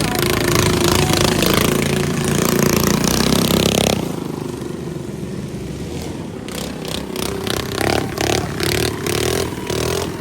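Motor vehicle engines running and revving, one of them like a motorcycle, with the sound changing abruptly about four seconds in and turning into a series of uneven louder pulses later on.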